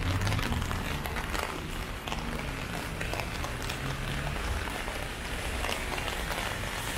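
Steady rain falling on an umbrella overhead: an even hiss dotted with many small drop ticks. A low vehicle rumble runs underneath for the first four seconds or so, then fades.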